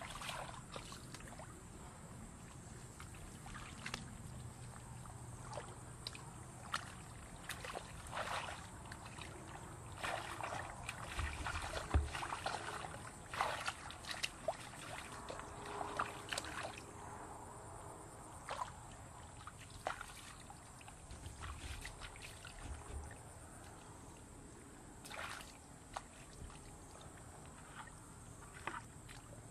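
Hands splashing and sloshing in shallow muddy water, with irregular small splashes and drips, over a faint steady high-pitched tone.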